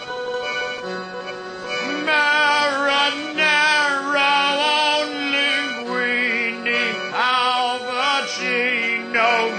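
Music: a singer comes in about two seconds in with long held notes and wide vibrato, over steady instrumental accompaniment.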